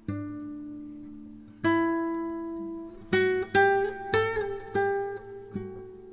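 Background music: slow plucked guitar notes, each left to ring and fade, with a quicker run of notes about halfway through.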